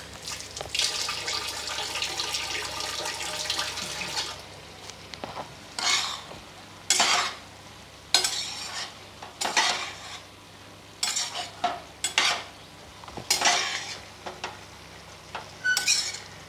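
Chickpea curry sizzling in a metal cooking pot for about four seconds. Then a steel spoon scrapes and clinks against the pot as the curry is stirred, about once a second.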